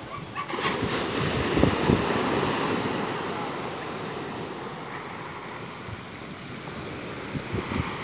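Small sea waves breaking and washing up the shore: a surge swells about half a second in, is loudest for the next couple of seconds, then slowly fades, with another wave building near the end. Wind buffets the microphone.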